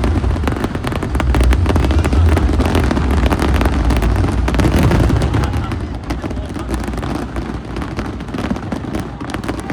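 Aerial fireworks going off: deep booming rumble with many sharp crackles, easing off after about six seconds.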